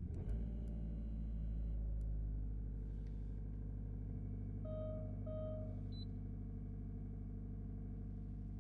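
Mazda3 engine catching right at the start and running at a steady, raised idle that is noisier than usual: the idle is high because the engine is running its purification cycle, not because of a fault. Two short electronic chime beeps sound about five seconds in.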